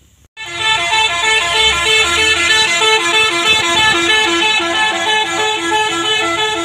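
Musical horn of a Malkit combine harvester playing a repeating tune that alternates between two notes, starting suddenly just after the start, over the low rumble of the harvester's engine.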